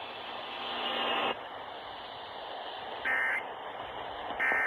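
Emergency Alert System end-of-message data tones heard over radio: short, shrill warbling buzzes about 1.4 s apart, two of them in this stretch, the second near the end. Underneath is steady radio hiss, with a buzzy hum that stops about a second in.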